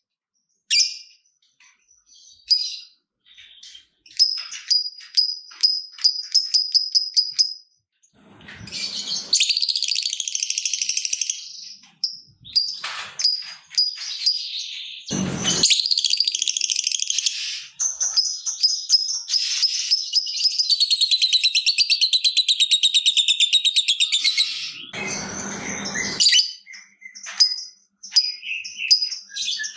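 Lovebird calling: a fast series of short, high ticking chirps, then in the second half long unbroken trilling chatter (the 'ngekek' trill), broken by a few short harsh bursts.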